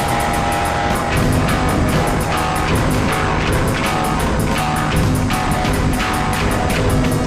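Rock music with electric guitar and drums, played at a steady loud level over a fast, even cymbal pulse.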